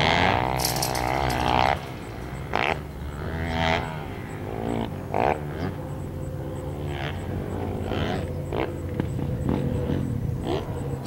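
Dirt bike engines revving as the bikes accelerate and shift, the pitch rising and falling. The loudest run is in the first two seconds, and shorter revs come and go after it.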